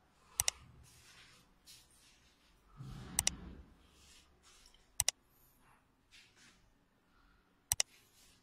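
Computer mouse clicks: four sharp double clicks, a couple of seconds apart, over faint room noise, with a short low rumble about three seconds in.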